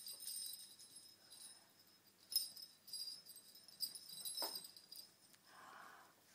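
Faint jingling of small bells, in a few separate shakes.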